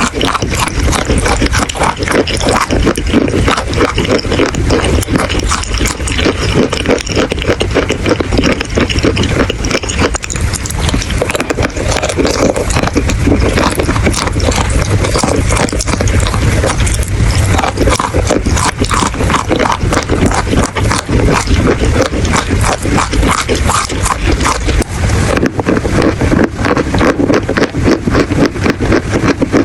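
Chalk being bitten and chewed close up: a dense, continuous run of crunching and scraping.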